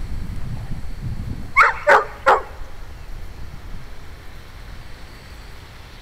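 A dog barks three times in quick succession, about a second and a half in, over low wind rumble on the microphone.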